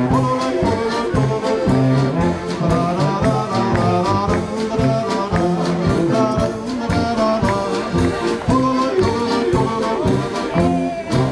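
Oompah band music: accordion with brass playing a lively march over a steady, even oom-pah beat.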